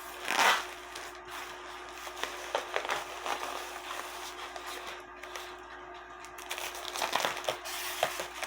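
Packing material being handled and pulled out of a box: crinkling and rustling, with one louder rustle about half a second in and busier rustling near the end.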